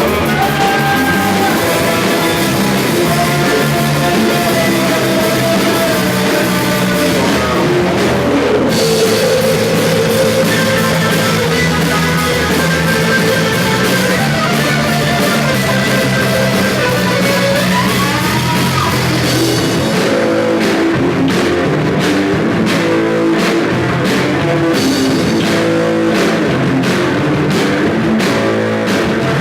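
Rock band playing live: guitar and bass over a drum kit, no vocals. About twenty seconds in, the continuous cymbal wash gives way to a choppy, stop-start rhythm.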